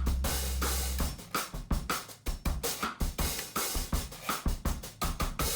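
Background music with a drum kit playing a steady beat; the deep bass drops out about a second in, leaving the drums and cymbals.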